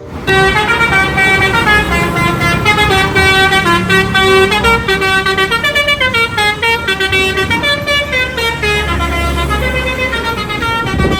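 Telolet multi-tone musical horn on a bus playing a quick tune, its notes stepping up and down one after another for the whole stretch, over a vehicle engine's low rumble that grows stronger near the end.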